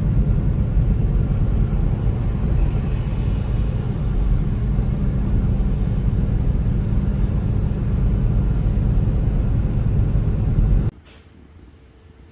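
Steady road and engine noise of a car driving on a highway, a low rumble that cuts off abruptly about eleven seconds in, leaving a faint, quiet room tone.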